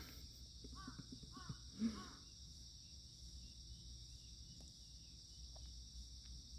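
Crickets shrilling steadily in a high, even chorus. About a second in, a crow caws three times in quick succession.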